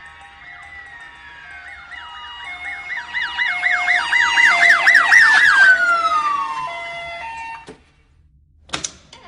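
Several overlapping siren-like wails with fast warbles, stepped beeping tones and a long falling glide. They swell about three seconds in and cut off suddenly at about eight seconds. A brief harsh burst comes near the end.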